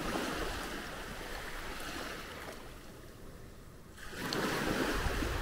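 Small waves washing up onto a sandy shore at the water's edge. One wash fades away over the first couple of seconds, and another comes in about four seconds in.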